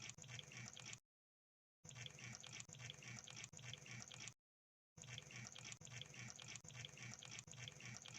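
Crab sound effect: faint, wet-sounding clicks repeating quickly, about four a second. They come in three stretches, cut by two short gaps of dead silence about a second in and near the middle.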